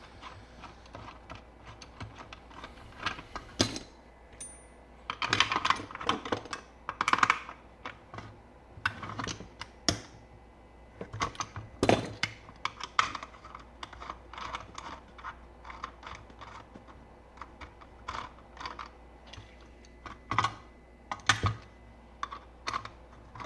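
Irregular clicks, taps and knocks of small hard parts being handled and fitted together while assembling an electronics case.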